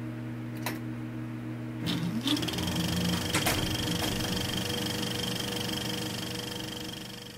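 Mechanical whirring sound effect under the logo: a steady hum with a few sharp clicks, a short rising whine about two seconds in, then a steady high whine. It fades out near the end.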